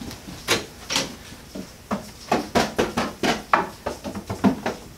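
Irregular knocks and thuds of someone running in sneakers on a carpeted floor and slapping or tapping wooden shelves and plastic bins, coming faster in the second half.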